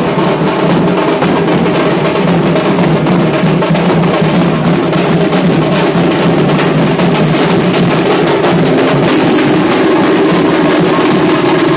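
Large double-headed dhol drums beaten in a loud, fast, dense rhythm that carries on without a break.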